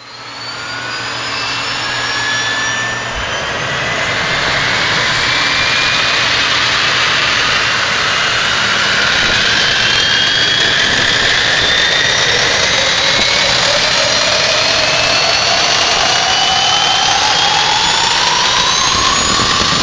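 Jet engine running loud and steady. Several whines climb slowly and evenly in pitch as the engine spools up.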